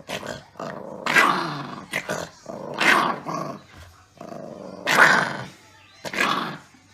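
Chihuahua puppy growling in play, the growl swelling into louder bursts four times.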